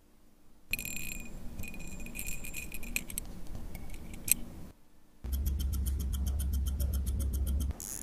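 Vacheron Constantin calibre 1400 hand-wound watch movement running, with a fast, even ticking from its escapement. The ticking stops briefly about five seconds in, then resumes.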